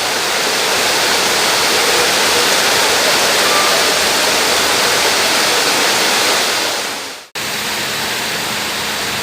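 Heavy rain pouring down steadily, a dense loud hiss. It fades out and breaks off for an instant about seven seconds in, then carries on.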